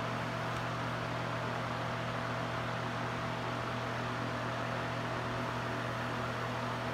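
Steady hum of a building's ventilation system: a constant low drone with a fainter higher tone over an even hiss of moving air.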